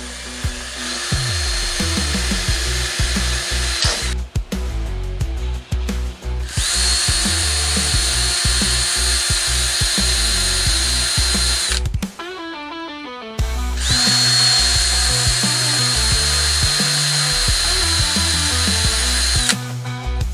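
Electric drill driving a spot weld cutter into sheet steel, running in three separate stretches of several seconds each with a steady high whine, over background music.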